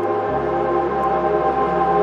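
Electronic music: a held synth chord with a deep bass note underneath that shifts lower about a third of a second in, without drums.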